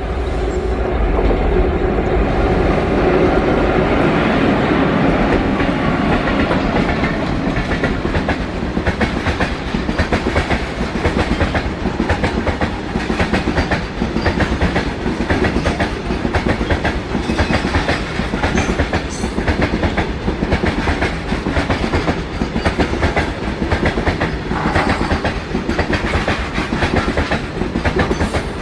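Twin WAG5 electric locomotives running past at the head of a freight train, then a long rake of BCN covered wagons rolling by, their wheels clattering in a steady rapid rhythm over the rail joints.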